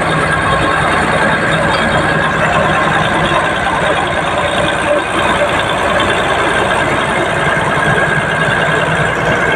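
Komatsu bulldozer travelling: its diesel engine running steadily under the rattle and clank of its steel tracks.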